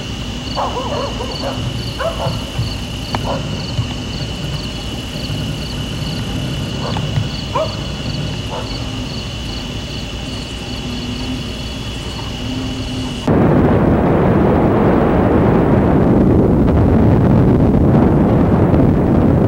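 Insects, crickets among them, trilling steadily with a pulsed chirp about twice a second over a low truck engine rumble. About two-thirds of the way through, a sudden loud rushing noise takes over: wind buffeting the microphone as the truck moves off.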